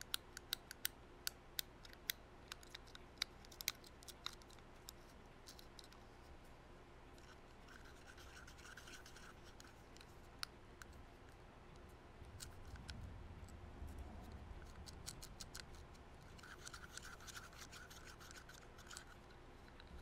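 Fidget cube worked with the fingers right at the microphone. Small sharp clicks come irregularly for the first several seconds, followed by soft scratching and rubbing.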